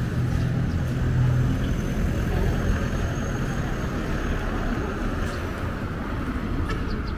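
Road traffic passing close by: cars and SUVs driving past with engine hum and tyre noise. A low engine drone is strongest in the first second or so.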